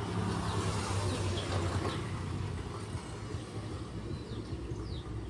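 Low, steady engine hum like an idling vehicle, louder during the first two seconds, with a few short, falling bird chirps over it.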